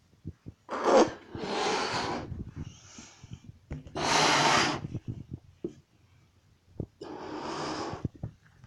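Ferret hissing in short breathy bursts, three of them about a second long and the loudest in the middle, with soft clicks and scuffs between.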